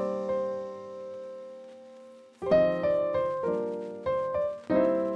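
Background piano music: a chord rings and fades for about two seconds, then chords are struck in a steady rhythm.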